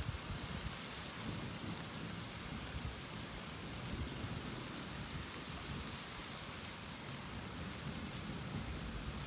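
Steady rain falling, with low rumbles of thunder coming and going, the strongest right at the start.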